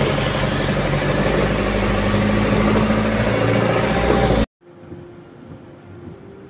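A vehicle's engine running with a loud rushing noise as it drives through floodwater. About four and a half seconds in, the sound cuts off abruptly to a much quieter, steady hum inside a car.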